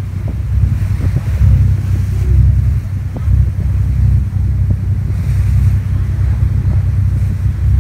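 Wind buffeting the microphone, a loud low rumble that rises and falls, over the wash of sea water as a boat moves along.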